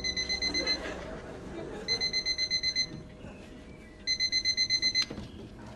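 Electronic alarm clock beeping: short, fast pulsed high beeps in bursts of about a second, three bursts roughly two seconds apart.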